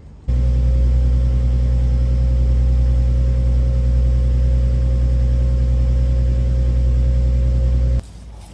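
A loud, steady, engine-like mechanical hum at a constant pitch, heavy in the low end. It starts suddenly and cuts off abruptly near the end.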